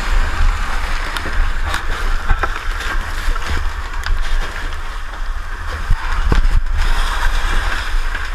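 Firefighting inside a smoke-filled burning building, picked up by a helmet camera: a steady rushing, sloshing noise over a heavy deep rumble, with scattered knocks and clicks. The rush briefly drops out about six and a half seconds in.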